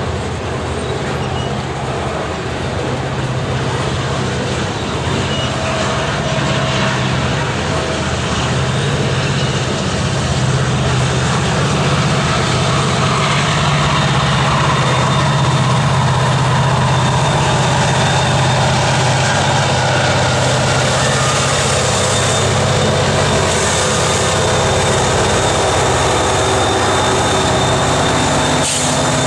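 Freight train of tank cars rolling past at close range: steady wheel-on-rail noise under a low diesel engine hum that grows a little louder through the middle, as a Norfolk Southern diesel locomotive comes past near the end.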